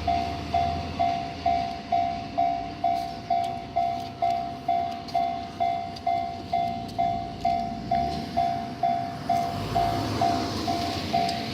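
Japanese railway level-crossing alarm bell ringing steadily at about two strokes a second. The rumble of a train comes up underneath it near the end.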